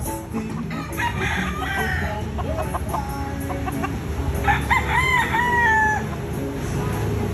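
Gamefowl roosters calling: short clucks in the first few seconds, then one long crow about four and a half seconds in that lasts about a second and a half and drops in pitch at its end.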